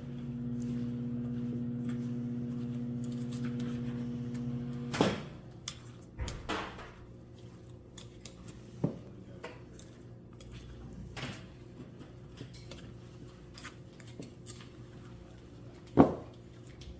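Microwave oven running with a steady hum that stops with a click about five seconds in. After that, scattered light knocks and clinks of kitchen utensils, with one sharp knock near the end.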